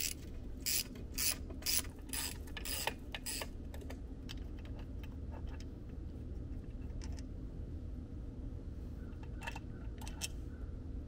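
Ratchet wrench clicking in quick strokes, about two a second, as it loosens a water pump housing bolt on an outboard lower unit. The ratcheting stops after about three and a half seconds, leaving a few faint clicks and taps as the bolt is turned out by hand.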